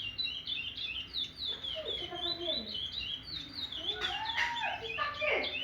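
A six-month-old captive songbird singing: a fast, unbroken run of short, high chirping notes, with lower gliding notes sounding underneath.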